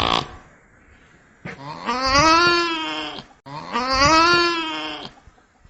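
Nutria (coypu) calling: two long calls, one straight after the other, each rising in pitch and then holding.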